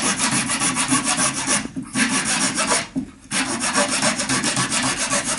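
Fine-toothed hacksaw blade (about 22 teeth) sawing off the protruding end of a wooden dowel plug flush with a wooden panel, in quick, even back-and-forth strokes. The sawing breaks off briefly just before two seconds in and again, a little longer, around three seconds.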